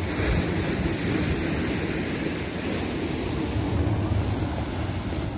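Sea surf breaking and washing against a rocky shore, a steady rushing sound with wind gusting on the microphone.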